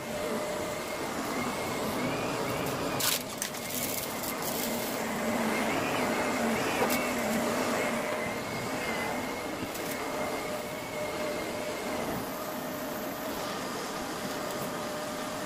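Bagless upright vacuum cleaner running as it is pushed over carpet, a steady motor drone with a slightly wavering whine, and a couple of brief knocks about three seconds in. The footage is played at double speed.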